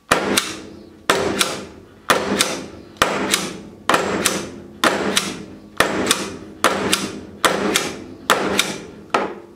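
A pistol carrying a Cyelee CAT micro red dot sight is slammed hard against a desk edge about once a second, around eleven times in a row. Each strike is a loud knock with a quick second knock and a short ring dying away. This is an impact abuse test of the sight.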